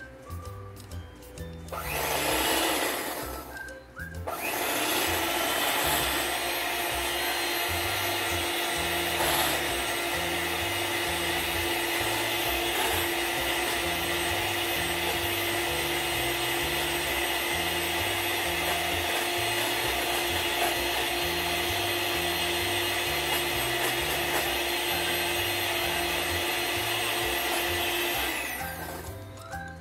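Electric hand mixer beating a cream mixture with crushed cookies in a glass bowl: a short run starting about two seconds in, a brief stop, then a steady run that cuts off shortly before the end. Quiet background music with a steady beat underneath.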